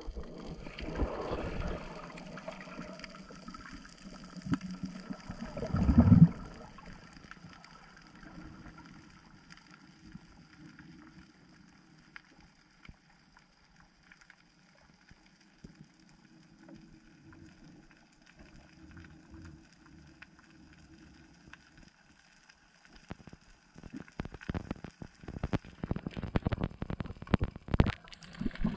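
Underwater sound heard through a submerged camera: muffled rushing and bubbling water at the start, with a strong surge about six seconds in. Then a quieter, steady low hum for a long stretch. Near the end come dense, irregular splashes and sloshing.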